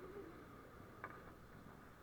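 Near silence: a faint steady hiss, with one soft click about a second in.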